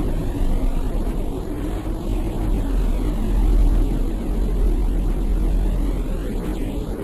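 Steady, deep rumbling drone presented as the sound of planet Earth: a space recording made audible.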